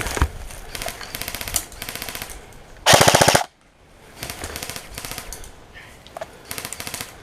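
Airsoft electric guns firing full-auto bursts of rapid, evenly spaced shots. One burst about halfway through is much louder and closer than the rest and lasts about half a second, while quieter bursts come from farther off.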